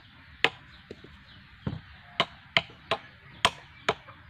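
Machete chopping into the husk of a green coconut: about seven sharp strikes at uneven intervals.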